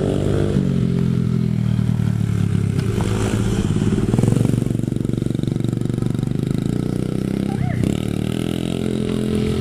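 Small dirt bike's engine running steadily as it is ridden, a little louder about four seconds in.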